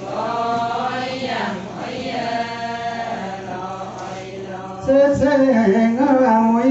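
A group of Adi women singing a Ponung chant together in long, slow, held phrases. About five seconds in, a louder single voice close by takes up the tune over the group.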